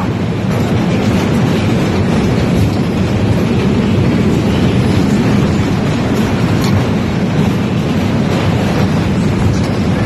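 Superbob ride's train of bob cars running at speed around the track: a loud, steady rumble of wheels on the rails.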